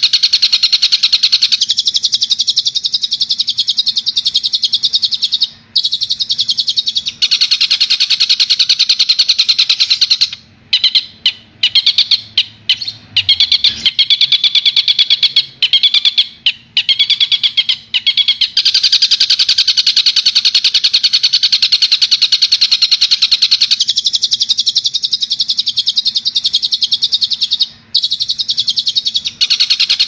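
Long-tailed shrike (cendet) singing a fast, continuous stream of high chattering notes. Around the middle it breaks into short phrases with brief pauses, then settles back into the unbroken stream.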